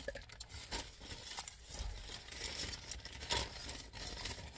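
Paper takeout bag rustling and crinkling as it is handled, in irregular crackles.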